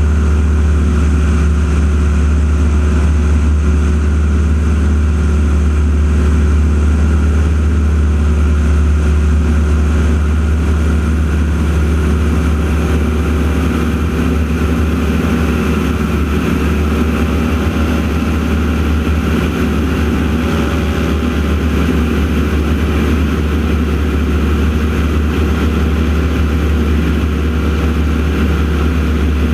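Radial piston engines of the Aeroshell team's North American T-6 Texans droning steadily overhead during their aerobatic routine, with a faint waver in pitch in the middle.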